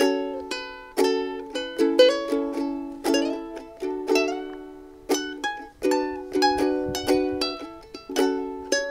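Ukulele fingerpicked in a repeating picking pattern: single plucked notes in quick succession, each ringing on into the next.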